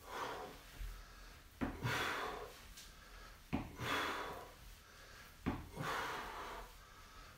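A man breathing out hard on each rep of a dumbbell split squat, about every two seconds. A short sharp knock comes just before most of the breaths.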